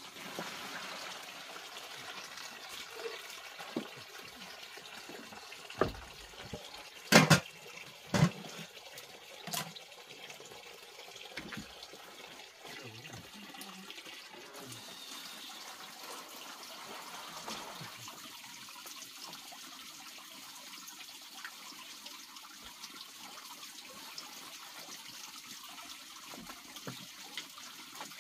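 Water running and splashing as things are washed by hand in a plastic basin. A few sharp knocks come partway through, the loudest two about a second apart.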